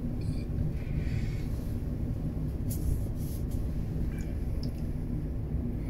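Steady low hum of a ship's engines inside a cabin, with a few faint sounds of drinking from a beer can in the first seconds.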